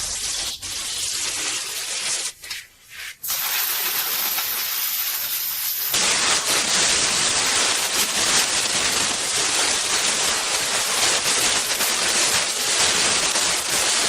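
Compressed air blowing in a steady hiss, cleaning dust out of a graphics card. It breaks off briefly twice about two to three seconds in, then runs steadier and louder from about six seconds on.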